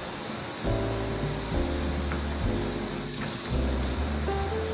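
Kitchen faucet running in a thin, steady stream into a stainless steel sink, with background music playing over it.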